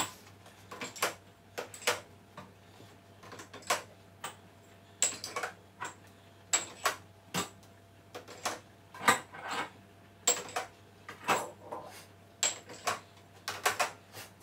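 Glass beer bottles clinking and knocking against each other and the plastic rack of a bottle washer as they are set in upside down, irregular clinks throughout, some with a brief glassy ring.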